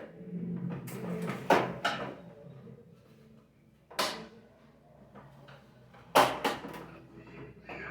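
Knocks and sharp clicks of a vacuum cleaner's plastic parts being handled and worked on by hand, the loudest about one and a half seconds in and just after six seconds in.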